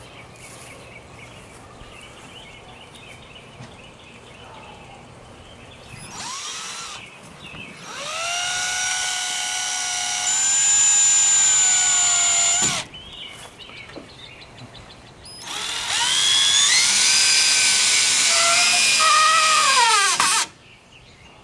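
Power drill driving deck screws into wood: a brief trigger pull, then two runs of several seconds each. The motor pitch sags near the end of the second run as the screw seats.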